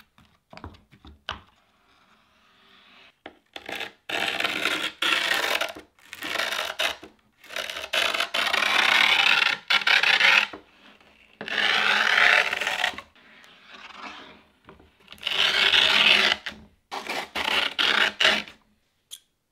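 Grip tape being pressed flat onto a skateboard deck by hand, then a metal tool scraped hard along the grip tape over the deck's edge in about seven long scraping strokes with short pauses, scoring the outline for trimming.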